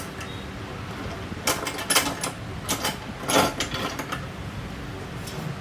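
Metal clicks and rattles from the steel vise of a mini cut-off saw as a steel workpiece is clamped, in several short bursts from about a second and a half in until about four seconds in. The saw's motor is not running.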